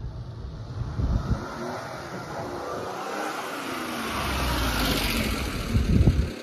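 A 1993 Daihatsu Hijet kei truck drives past, its small 660 cc three-cylinder engine and tyres growing louder as it nears and closest about five to six seconds in. A couple of low rumbles come and go along the way.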